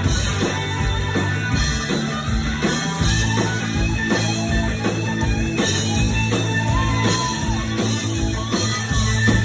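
Live rock band playing an instrumental passage: electric guitars with a bending lead line over bass and a steady drum beat.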